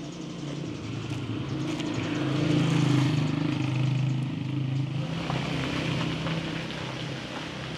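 A motor vehicle's engine running as it passes close by, its hum growing to its loudest about three seconds in and then slowly fading.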